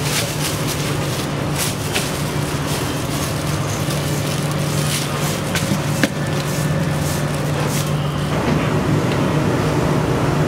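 Dough being slapped and worked by hand in a floured steel bowl and a plastic bag, with repeated rustles and pats and one sharp click about six seconds in, over a steady low hum. The handling stops about eight and a half seconds in, leaving the hum.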